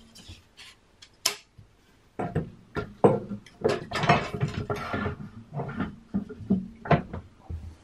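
Wooden boards and steel bar clamps being handled on a glued plywood cabinet: a few knocks, then a busy run of sharp taps, clacks and scrapes of wood against wood and metal from about two seconds in.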